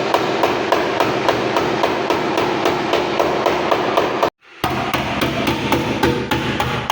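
Rapid, even hammer blows on car bodywork, about three to four a second. The sound breaks off abruptly a little past four seconds in and starts again.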